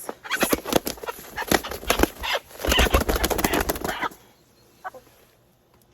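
A hen beating her wings in a rapid, loud flurry for about four seconds while being held, struggling against the handler, then going still.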